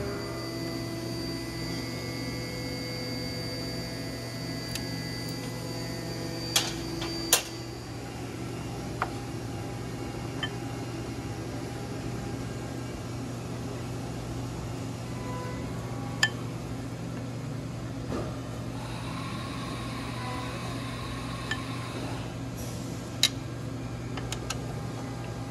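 Steady low mechanical hum of the workshop, with a few sharp metallic clicks as hand tools work the bolts at a dirt bike's footpeg and brake pedal, two of them close together about seven seconds in.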